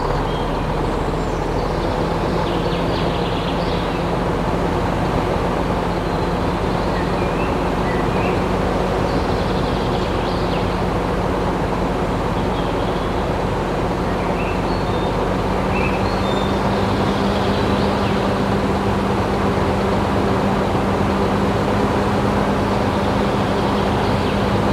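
Small electric motor running steadily with a continuous hum and noise; the hum rises slightly in pitch about two-thirds of the way through.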